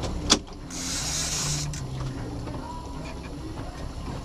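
Boat's outboard motor running with a steady low hum, a single sharp knock about a third of a second in, and a short burst of hiss about a second in.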